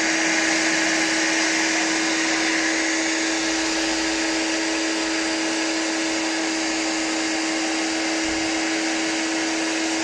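Spear and Jackson electric pressure washer running steadily with the snow foam lance spraying: a constant motor hum under a loud, even hiss of spray.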